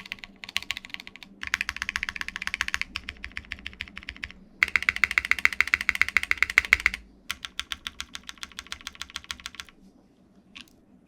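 Shelby80 tenkeyless mechanical keyboard with no foam inside, typed on in several fast runs of keystrokes. The loudest, fastest run comes in the middle; the typing stops about ten seconds in, leaving a few scattered clicks.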